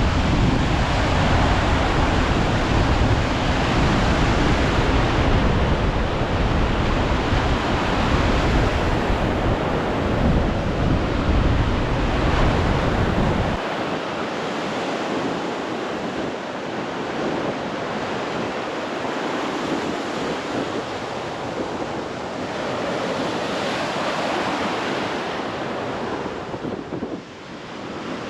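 Sea waves washing on the shore as a steady hiss, with wind buffeting the camera microphone as a low rumble that cuts off suddenly about halfway through.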